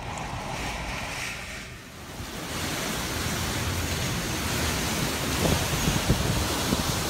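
Hurricane wind and rain: a quieter rush at first, then about two and a half seconds in a loud, steady rush of wind through trees, with low buffeting of wind on the microphone.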